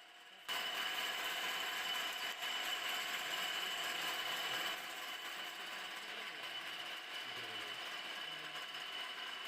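Lathe running with a steady high whine over mechanical noise. It comes in abruptly about half a second in, then drops to a lower level a little before halfway.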